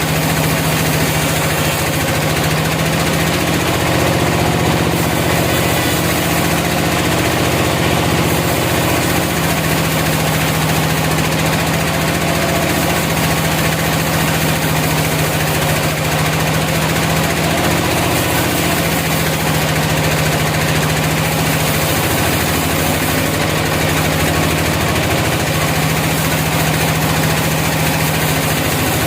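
Sawmill engine running steadily, a continuous loud mechanical hum with small shifts in its low tone.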